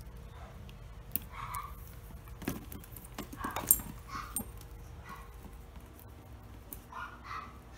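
Clicks and clinks of a handbag's metal strap clasp and hardware being handled, the sharpest about halfway through. Short animal whines sound several times in the background.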